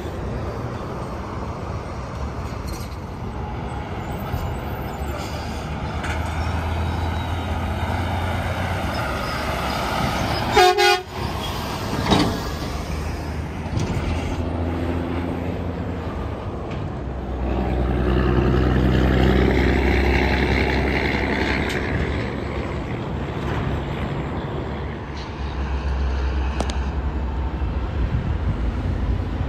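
Steady interstate traffic, heavy trucks passing with tyre and engine noise. A single short horn toot sounds about a third of the way in, and one truck's engine grows loudest about two-thirds of the way through as it goes by.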